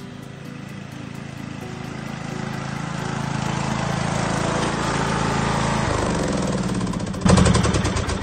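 John Deere riding lawn mower engine running and growing louder as the mower approaches, then a sudden louder clatter about seven seconds in followed by a few separate pops as it is shut down.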